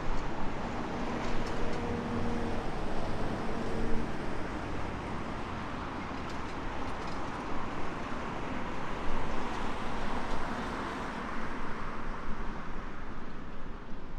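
Steady rumble of distant engines, with a faint steady tone in the first few seconds.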